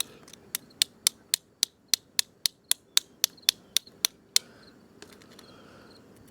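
A rapid, even series of about fifteen sharp clicks, roughly four a second, stopping about four and a half seconds in.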